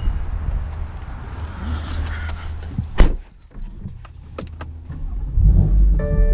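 A car door shuts with one loud thump about three seconds in, over the low rumble of a car. Near the end the car's low running noise swells.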